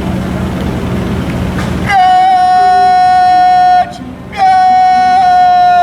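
A parade commander's drawn-out shouted word of command: two long, loud calls held on one steady pitch, the second dropping off at its end.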